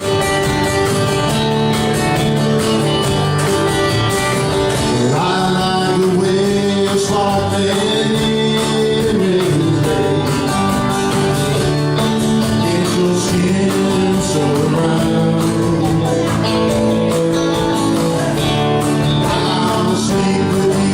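A live band playing a song, with a vocalist singing over guitar and a steady drum beat.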